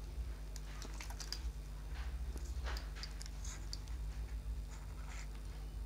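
Scattered small clicks and taps of fingers handling a smartphone's plastic mid-frame and flex cable, over a steady low electrical hum.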